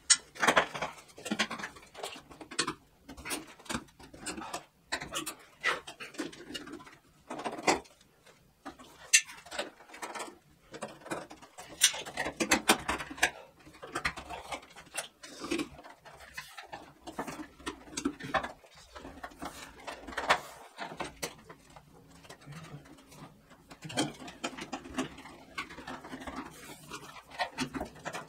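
Irregular clicks, knocks and rustling from hands and tools working the terminal screws and pulling heavy battery cables out of solar inverters.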